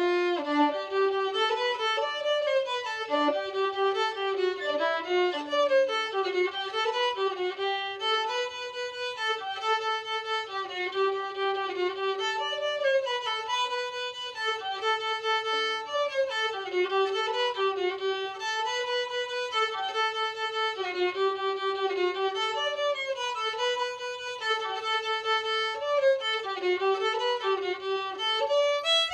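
Solo violin playing an Irish jig: a steady stream of quick bowed notes in a lilting melody that runs up and down without a break.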